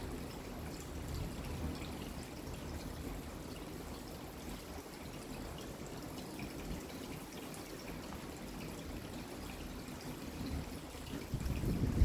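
Steady rain with water dripping and trickling, and scattered drips ticking over it. A louder low rumble swells in near the end.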